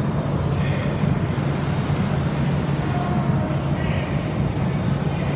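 A steady low hum over a continuous even rumbling noise, like vehicle road noise.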